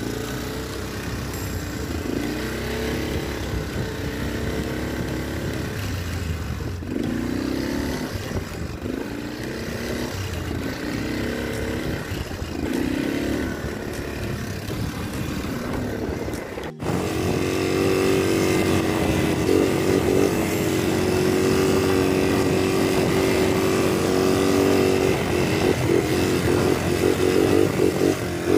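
Motorcycle engine running while riding, its pitch rising and falling with the throttle. After a break about seventeen seconds in, it runs louder and steadier.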